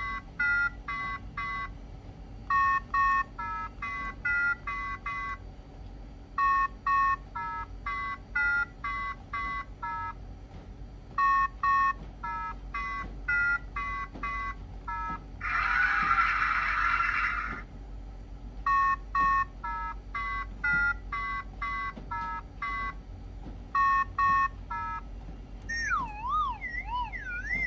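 Cat paw fidget game toy sounding runs of short electronic beeps at a few different pitches as its paw pads are pressed, with pauses between the runs. A rough buzzing sound lasts about two seconds midway. Near the end a wavering, warbling electronic tone sounds as a wrong press ends the round.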